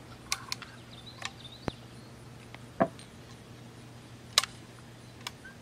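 A few short, sharp clicks and knocks at irregular intervals, the loudest about three seconds in and another just over a second later, over a faint steady hum.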